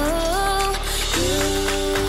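Background music: a melody stepping upward in pitch, then settling on a held note, over a steady bass line.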